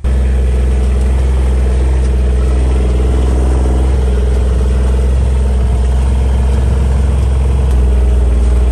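A vehicle's engine running at a steady speed: a loud, even low drone with no change in pitch.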